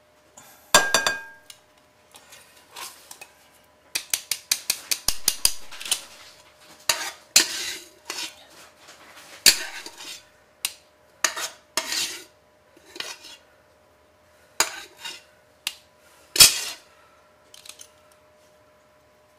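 Metal kitchenware clanking and scraping: a stainless steel potato ricer knocking against a pot and bowl as the last boiled potatoes are scooped and pressed. There is a quick run of taps about four seconds in and a sharp clank near the end.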